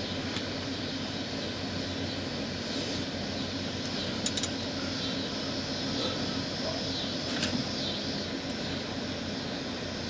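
A steady background hum with a few brief metallic clinks, like hand tools knocking under the car, about four seconds in and again past seven seconds.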